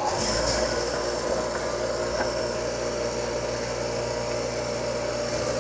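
Angle grinder fitted with a flap disc running at full speed with a steady whine, grinding a steel mower blade.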